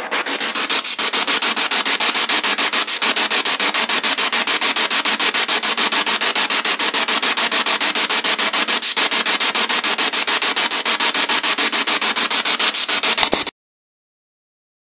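Ghost-hunting spirit box sweeping through radio frequencies, played through a small JBL portable speaker: loud static chopped into a rapid, even pulsing. It cuts off abruptly about a second before the end.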